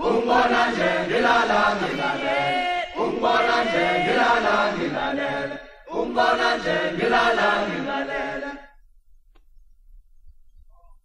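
A group of voices chanting a repeated phrase in unison, in three phrases of about three seconds each, stopping about nine seconds in.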